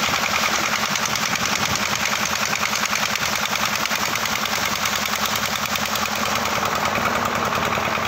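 Tubewell pump's belt-driven stationary flywheel engine running steadily with a fast, even beat. Water gushes from the outlet pipe into the tank.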